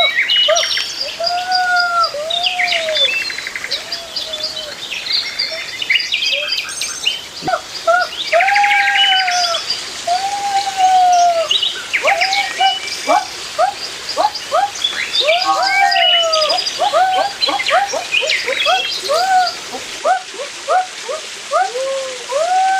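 Several birds calling at once: short arched whistled calls repeating steadily, with higher chirps and a few rapid trills over them.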